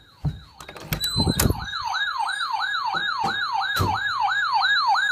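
Electronic siren sounding in rapid, repeated falling sweeps, about three a second, with several heavy thumps in the first two seconds and two more about three to four seconds in. It cuts off suddenly right at the end.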